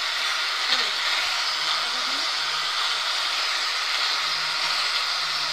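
Electric drill running steadily as its bit bores into a brick wall, a continuous even motor-and-grinding noise with no let-up.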